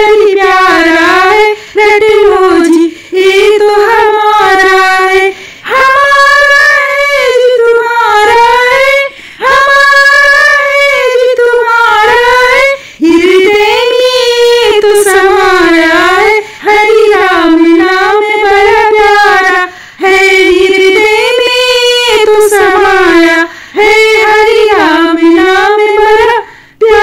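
A woman singing a Hindi devotional bhajan solo, with no instruments, in phrases of a few seconds each with short breaks for breath between them.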